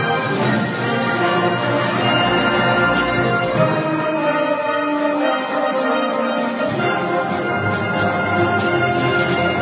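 A school honor concert band playing a full-ensemble passage, the brass prominent over held chords.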